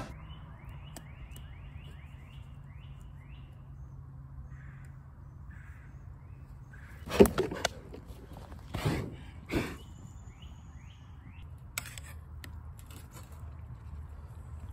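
A bird calling in a quick run of short rising chirps, about four a second, with a second run near the end. In the middle come three short, loud, noisy rushes, and a faint steady low background runs under everything.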